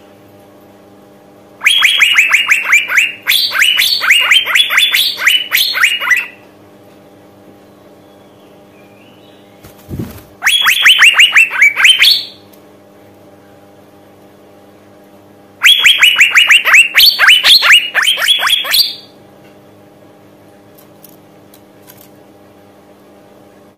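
Female Asian fairy-bluebird calling in three loud bouts of rapid, sharp repeated notes, each run lasting a couple of seconds with short pauses between. A faint steady hum sits underneath, and a brief low thump comes just before the second bout.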